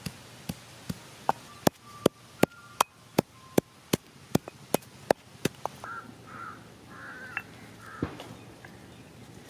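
A heavy stone pestle pounding cloves and cinnamon in a stone mortar, sharp strikes about two and a half a second that stop about six seconds in. A few bird calls follow.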